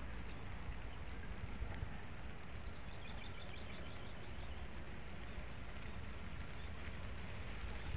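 Steady low wind rumble on the microphone, with a faint bird chirping a few times about three seconds in.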